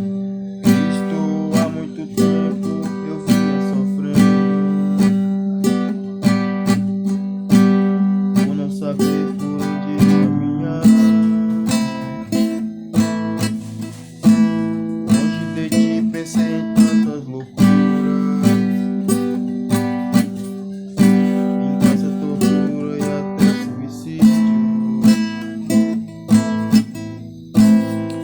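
Acoustic guitar (violão) played solo, strummed and plucked chords in a steady rhythm as an instrumental introduction to a song.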